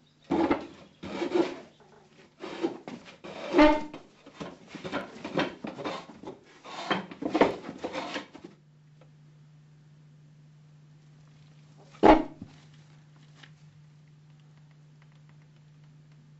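A run of loud, rough vocal cries and snarls lasting about eight seconds, then a steady low hum with one sharp knock about twelve seconds in.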